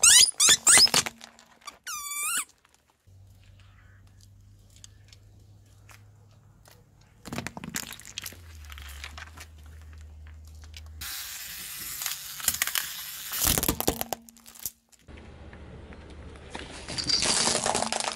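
A car tyre rolling over rubber spiky balls and squishy mesh stress balls and crushing them. Several high squeaks come at the start, then a low steady hum, then loud crackling crush noises twice, once about halfway through and again near the end.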